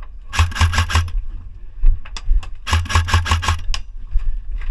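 An AK-style airsoft rifle firing two short full-auto bursts of rapid, evenly spaced shots, the first just after the start and the second about halfway through, with a few single sharp clicks between them.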